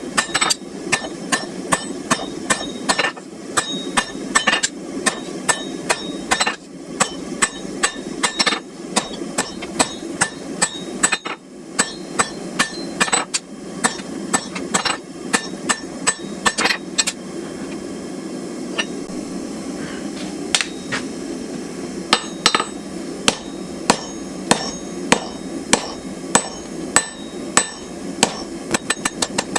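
A blacksmith's hammer striking hot steel on an anvil, the blows ringing and coming in quick irregular runs of about two a second, as a knife tang is drawn out. The strikes thin out for a few seconds past the middle, over a steady low background noise.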